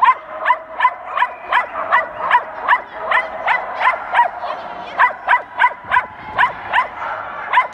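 A dog barks over and over in a fast, even rhythm, about three sharp barks a second, while it runs an agility course.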